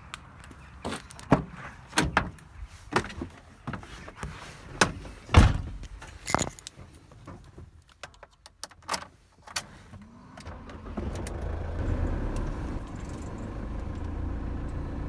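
Scattered clicks and knocks, like keys and a door being handled, for about ten seconds. Then a vehicle engine starts and runs with a steady low rumble that grows louder.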